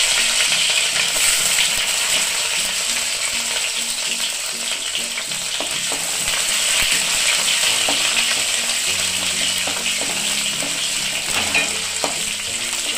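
Chopped green bell pepper sizzling in hot mustard oil in a kadai, with a steady frying hiss and the light scrape and tap of a wooden spatula stirring it.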